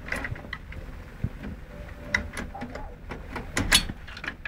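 Irregular clicks and knocks of a stock AMD CPU cooler being fitted, its retention clip being hooked onto the socket's mounting bracket; the loudest knock comes a little before the end.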